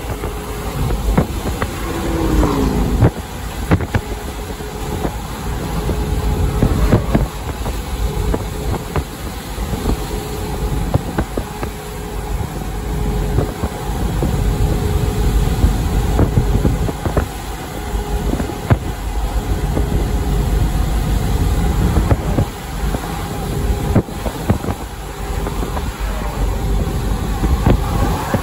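Road and wind noise of a vehicle driving at highway speed: a steady low rumble with a faint hum and scattered knocks, and a short falling tone about two seconds in.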